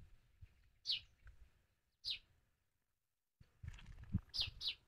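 A bird giving short, falling chirps, single ones about a second apart and then a quick pair near the end. The sound drops out completely for about a second past the middle, and faint low rustling comes in near the end.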